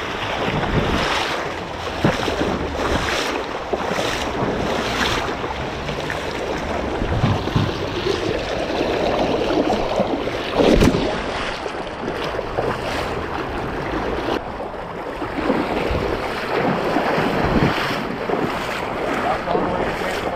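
Shallow, fast-running river water over stones, with repeated splashes of someone wading through it and wind buffeting the microphone; one louder splash comes about eleven seconds in.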